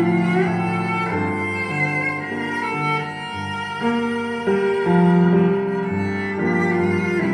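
Classical string music, violin with cello and some piano, in held notes that change about every second, played back through a stereo Bluetooth speaker.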